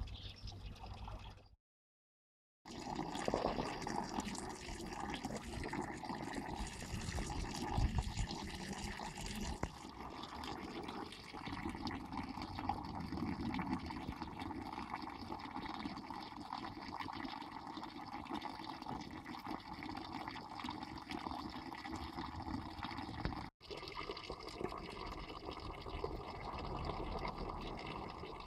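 Water running steadily from a public fountain's spout and splashing below, cutting out for about a second near the start.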